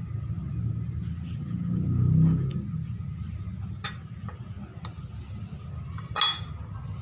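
Small steel rebar-bending tool handled on a ceramic tile floor: a few light metal clicks, then one sharp clink near the end as it is set down, over a steady low rumble.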